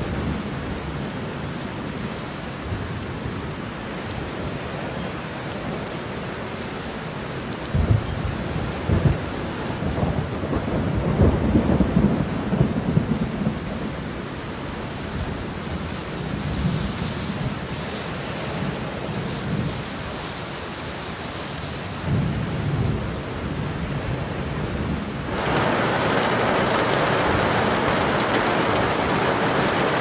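Heavy rain with thunder. Low rumbles of thunder come and go from about 8 to 14 seconds in and again briefly near 22 seconds. At about 25 seconds the rain's hiss abruptly grows louder.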